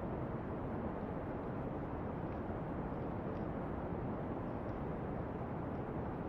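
Steady, deep brown noise, with a few faint pops and crackles of a wood fire scattered through it.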